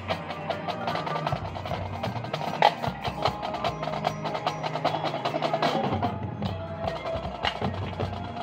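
High school marching band playing its field show: quick, crisp percussion hits over sustained low notes that break off and come back in, with higher pitched lines above.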